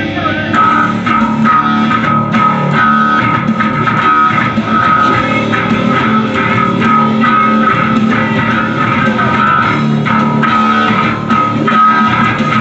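Rock music with an electric bass guitar being played, picked in a steady driving rhythm.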